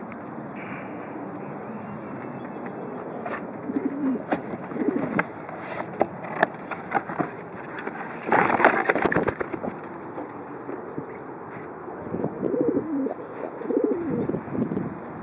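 White pigeon cooing in low rolling coos, a few bouts around 4 seconds in and again near the end. About halfway through, there is a loud cardboard rustle and scrape as a hand reaches into its carrier box.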